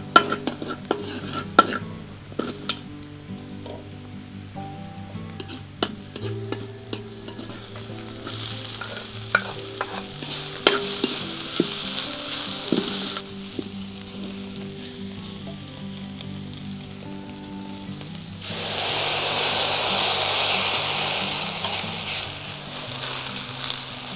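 Food frying in oil in a hot metal wok while a wooden spatula stirs and scrapes it: first garlic, then chicken and onion, with sharp taps of the spatula on the wok at the start. The sizzle thickens about eight seconds in. About eighteen seconds in, a much louder hiss rises as broth hits the hot wok, then dies back shortly before the end.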